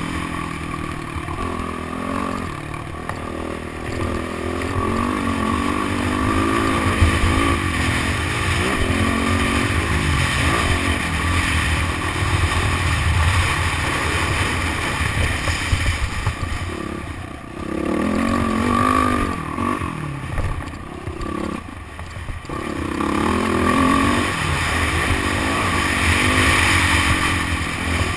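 Motocross bike engine revving up and down as the throttle is opened and closed around the track, dropping off briefly twice in the second half, over a steady low wind rumble.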